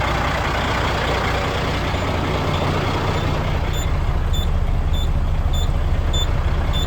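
Heavy truck's Cat diesel engine running steadily. From a few seconds in, a backup alarm beeps in short high tones about every 0.6 seconds, growing more prominent after about four seconds.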